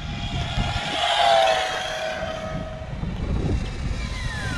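Redcat RC-MT10E 1/10-scale brushless electric monster truck at full throttle on a 3S LiPo: a high-pitched motor whine that swells about a second in, then falls steeply in pitch near the end. Wind rumbles on the microphone throughout.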